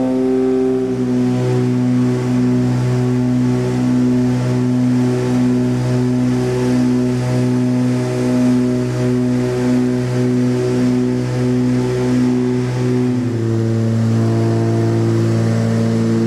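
Propeller aircraft's engines droning inside the cabin in flight, with a regular throb from the propellers beating against each other. The pitch steps slightly lower about 13 seconds in, as with a power change.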